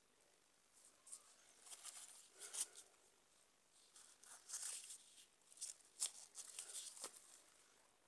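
Faint handling noise of cardboard firecrackers and thin fireworks sticks being picked up and shuffled in the hand on a carpet: irregular rustles of their paper wrapping and light clicks as they knock together, with two sharper clicks, about two and a half seconds and six seconds in.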